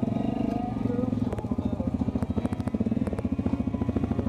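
ATV engine running steadily, with a fast, even beat of firing pulses.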